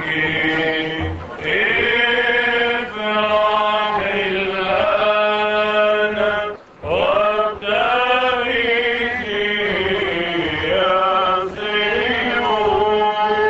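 Male clergy chanting a liturgical hymn into handheld microphones, in long held phrases with ornamented, wavering notes and brief pauses for breath between them.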